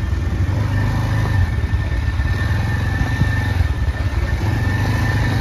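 Motorcycle engine running steadily as the bike is ridden, a continuous low rumble.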